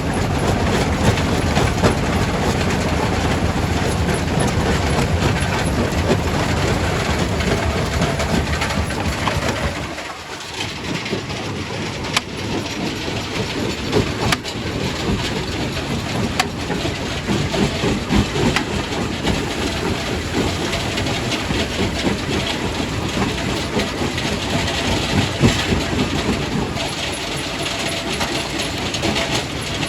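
Quarry primary rock crusher running and crushing stone: a steady heavy rumble and clatter. It drops briefly about ten seconds in, with a few sharp cracks shortly after.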